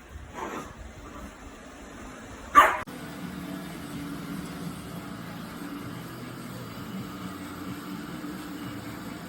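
A dog barks twice, faintly and then loudly. From about three seconds in, a steady low hum follows, the eufy 11S MAX robot vacuum's motor running.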